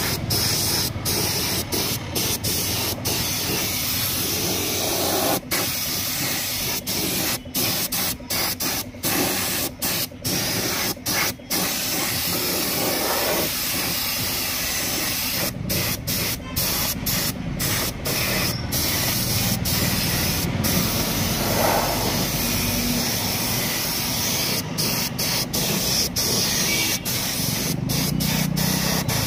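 Compressed-air paint spray gun with a top-mounted gravity-feed cup spraying paint: a steady hiss broken by many brief pauses as the trigger is let off for a moment.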